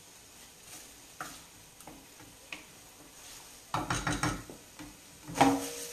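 Utensil stirring pasta in a metal frying pan, scraping and clinking against the pan as pecorino is stirred through. It is mostly quiet with a few light clicks, then a burst of scraping about four seconds in and a sharp clang with a brief ringing near the end.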